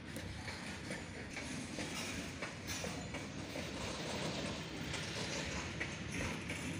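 Covered goods wagons of a freight train rolling past, steel wheels on the rails making a steady rumble with faint clicks, growing a little louder.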